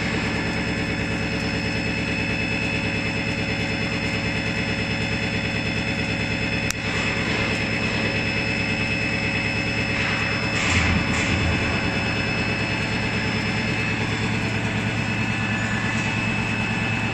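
Edge milling machine's angled milling head cutting a bevel on the lower edge of a steel plate: a steady machine drone with several steady tones. There is a sharp click about seven seconds in and a brief louder burst around eleven seconds.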